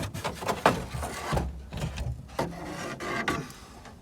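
A Jeep Cherokee XJ's plastic center console being worked loose and lifted out: irregular scraping and rubbing with many sharp clicks and knocks.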